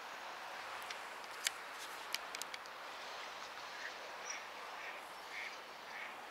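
Steady rush of flowing water in a waterway, with a few sharp clicks about one to two and a half seconds in. From about four seconds in, a bird gives short calls repeated about twice a second.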